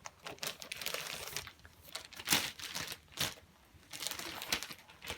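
Plastic and paper packaging of a football trading-card starter pack being handled, crinkling and rustling in uneven bursts, loudest about two and three seconds in.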